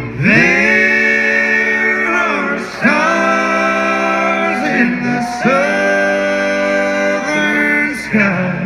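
Four male voices singing close bluegrass harmony through a concert PA, holding three long chords in turn with a shorter phrase near the end, an acoustic guitar underneath.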